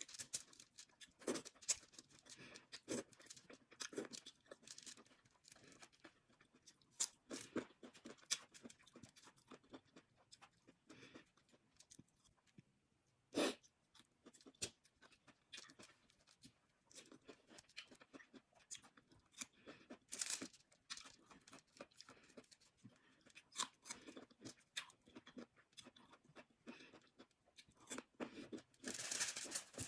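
Close-miked eating sounds from a seafood boil mukbang: irregular chewing, crunching and wet smacks, with one sharper, louder click partway through.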